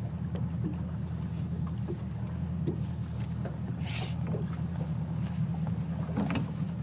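Steady low hum aboard a bass boat, with scattered light knocks and a brief hiss about four seconds in.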